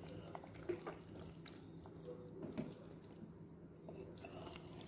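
Wooden spoon stirring thick chickpea and pumpkin curry in a pressure cooker: faint wet squelching with a few light clicks, over a low steady hum.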